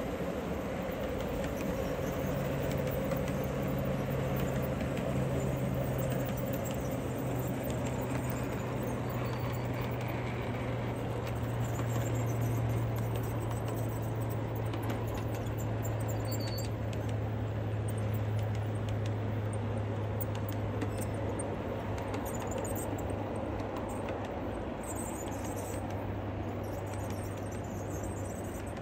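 Garden-scale model freight cars rolling past on outdoor track: a steady rumble of wheels on rail, with a steady low hum underneath from about two seconds in.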